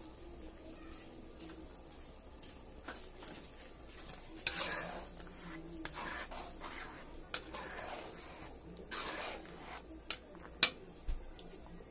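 A metal spatula stirs thick creamy carbonara sauce in a pan: stretches of wet swishing through the sauce, with a few sharp clicks where the spatula knocks against the pan.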